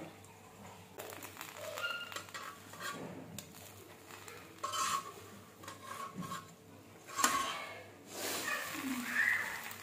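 Metal slotted spatula clinking and scraping against a flat griddle pan as a burger bun is pressed and turned over, several separate knocks, then a stretch of sizzling about eight seconds in as the bun is flipped.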